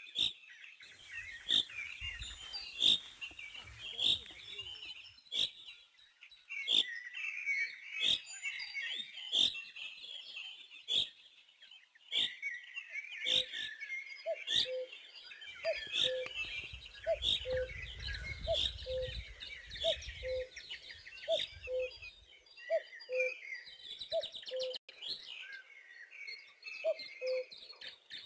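Birds chirping and twittering in a dense chorus, with sharp clicking notes about once a second. From about halfway through, a lower two-note call repeats roughly every second.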